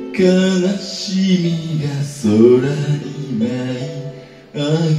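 A man singing a slow melody in phrases, with a brief pause shortly before the end.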